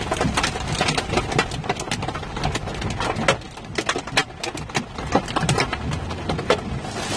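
Hailstones pelting the windshield and roof of a moving vehicle: a rapid, irregular patter of sharp knocks, several a second, over a steady low hum of engine and road noise.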